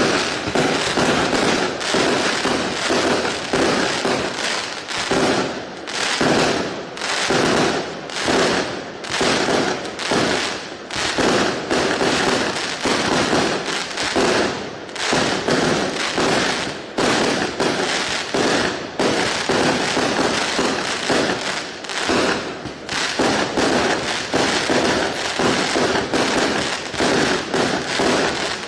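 A 0.8-inch, 100-shot fireworks cake firing shot after shot in rapid succession: a dense, unbroken string of tube launches and aerial bursts, the loudness swelling and dipping every second or two.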